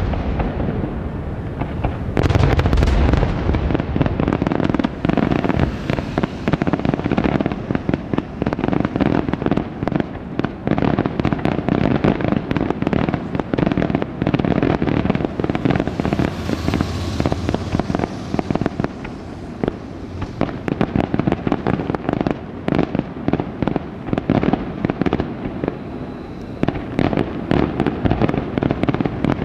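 Senatore Fireworks aerial display: a rapid, continuous barrage of shell bursts and crackling reports, with heavier booms about two to three seconds in.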